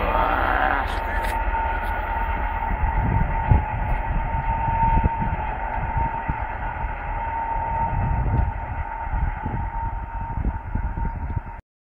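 DR1A diesel multiple unit running away into the distance: a steady drone with a constant high tone, over a low uneven rumble. The sound cuts off suddenly near the end.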